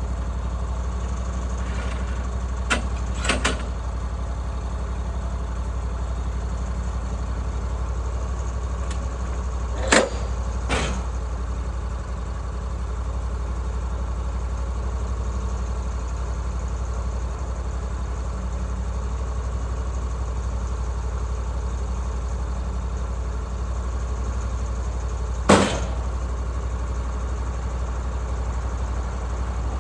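Woodland Mills HM136MAX sawmill's engine running steadily, with a few sharp knocks over it, the loudest about ten and twenty-five seconds in.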